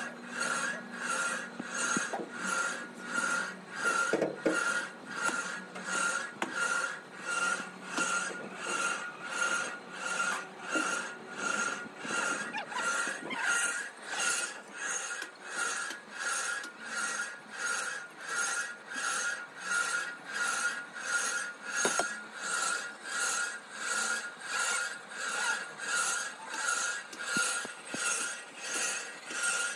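Steady back-and-forth rasping strokes, about one a second.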